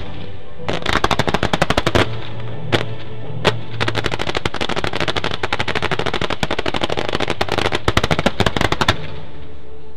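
Fans of single-shot firework tubes firing in rapid succession, many sharp pops a second. There are a couple of louder single bangs about three seconds in, and the densest volley runs from about four to nine seconds in before thinning out. Music plays underneath.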